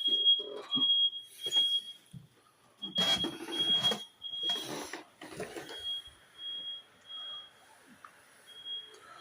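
Smoke alarm sounding its high-pitched beep in the standard three-beep evacuation pattern: three short beeps, a pause, then three more, repeating. A few thuds or rustles come partway through.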